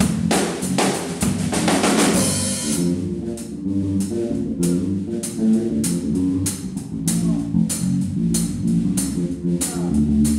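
A drum kit and an electric bass guitar playing together. Crashing cymbals wash over the drums for the first three seconds or so, then the drums settle into a tighter beat of sharp hits under a bass line.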